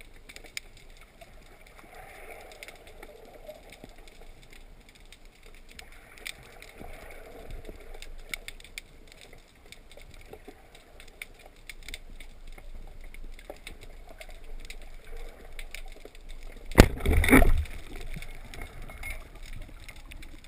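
Underwater sound heard through a camera housing on a speargun: a faint hiss with scattered small clicks, then a loud, short rushing burst about three-quarters of the way through.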